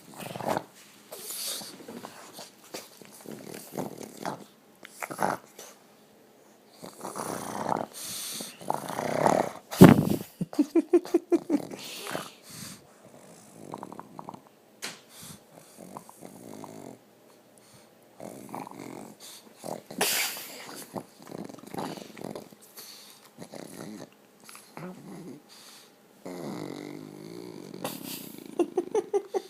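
Dog snoring while awake: irregular snoring breaths, with a sharp loud snort about ten seconds in followed by a quick rattling run of short pulses, and another rattling run near the end.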